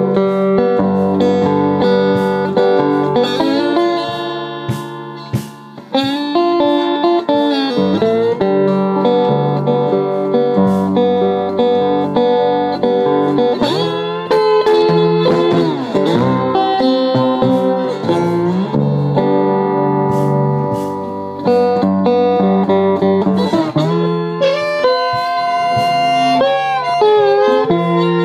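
Resonator guitar played slide-style, plucked and strummed, with a harmonica in a neck rack holding long chords over it. There are pitch glides in the middle and a brief dip in loudness about five seconds in.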